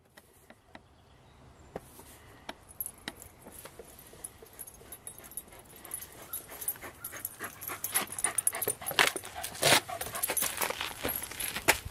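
A small dog playing with a frisbee, heard close by as a run of short, sharp sounds that come faster and louder in the second half, the loudest a couple of seconds before the end.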